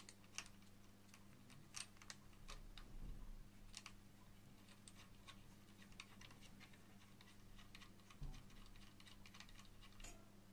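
Faint, irregular small clicks and taps of fingers working the mounting screws and bracket of a CPU cooler on a motherboard, over a low steady hum.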